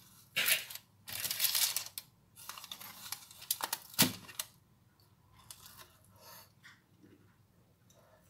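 Baking parchment rustling and crinkling as baked pieces are lifted off it, in several short bursts, with one sharp click about four seconds in. It is quieter over the last few seconds.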